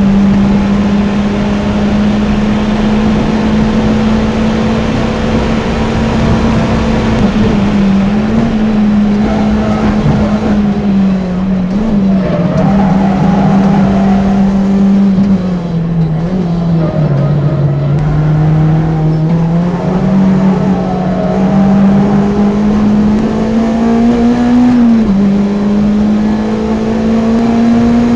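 Renault F4R 2.0-litre four-cylinder engine of a track-prepared Twingo RS, breathing through a decat exhaust, running hard at high revs, heard from inside the cabin over tyre and wind noise. Its pitch sags and climbs with the corners, falling lowest about midway as the car slows and downshifts, then rising again, with a brief drop near the end.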